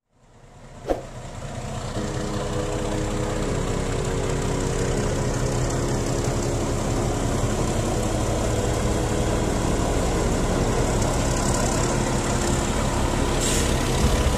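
Diesel locomotive's engine running steadily and loud as it passes, hauling a freight train. The sound fades in over the first couple of seconds.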